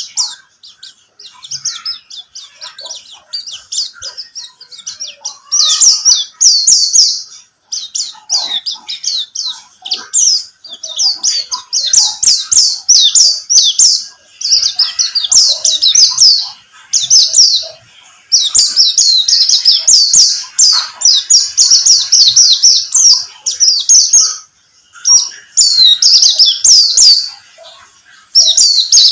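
White-eye (pleci) song used as a lure recording: rapid, high twittering in long phrases with short breaks between them. The first few seconds hold only quieter scattered chirps.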